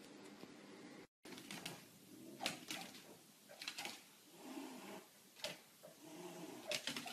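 Faint dog snuffling and grunting, with a few sharp clicks and knocks, after a brief drop to silence about a second in.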